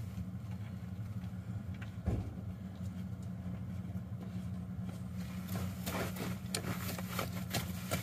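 An engine idling steadily nearby, a low, even hum. There is one dull thump about two seconds in, and light clicks near the end.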